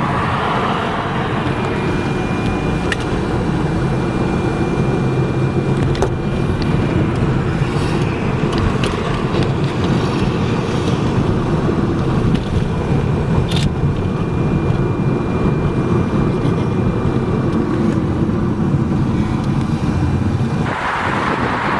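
Steady engine and road rumble heard inside a car's cabin while driving, with two faint clicks. About a second before the end the sound changes to a brighter hiss.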